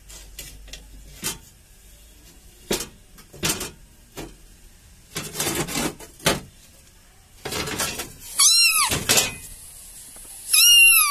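Scattered knocks and scrapes, then two loud, high animal cries that rise and fall in pitch: one about eight seconds in and one near the end.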